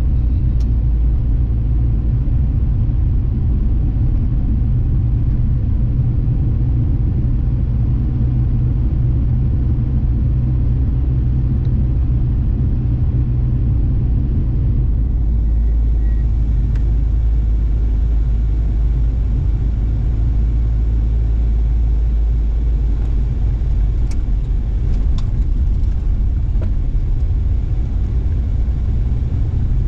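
Steady low rumble of a car driving on an unsealed dirt road, tyre and engine noise heard from inside the cabin, with a few faint ticks about 24 seconds in.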